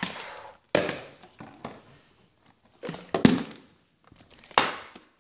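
Plastic water bottles knocking down onto a hard surface three times, with the crinkle of the thin plastic as they are handled between the knocks.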